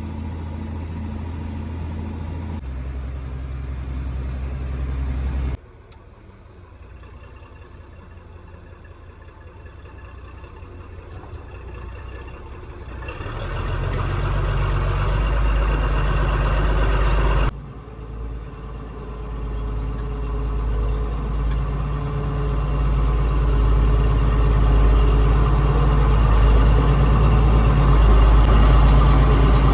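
Farm tractor engine running steadily. The sound changes abruptly twice and grows louder toward the end.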